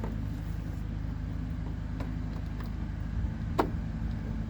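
A steady low engine hum, with a few light clicks and taps from parts being handled, the sharpest about three and a half seconds in.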